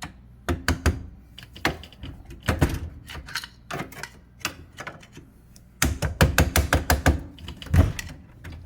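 Hammer blows on metal dishwasher fittings, in quick runs of sharp knocks with a long fast run about six seconds in and a last heavy knock near the end.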